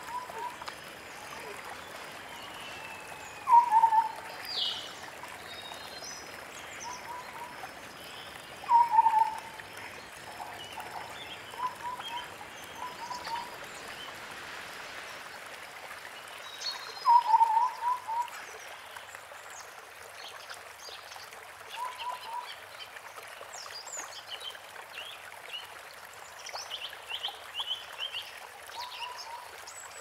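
White-browed scimitar babbler calling: short hollow piping notes in quick groups of two to four, loudest about 4, 9 and 17 seconds in. Thin high chirps from other birds come and go over a steady rush of running water.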